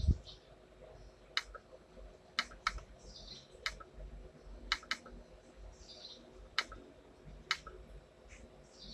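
Sharp single clicks at an uneven pace, about nine in all, some in quick pairs, from someone working a computer. Faint short chirps like a small bird's come now and then under a low hum.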